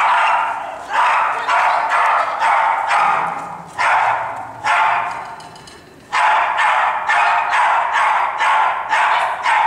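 Small dog barking over and over, about three barks a second, with a short break a little past halfway. The barks echo in a large hall.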